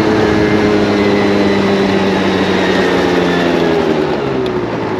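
Honda Live Dio ZX scooter's two-stroke engine running at steady speed under a steady rushing noise, its note dropping from about three seconds in as the scooter slows down.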